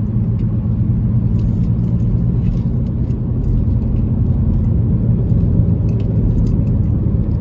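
Steady low rumble of a car's engine and tyres on the road, heard from inside the moving car, with a few faint scattered ticks.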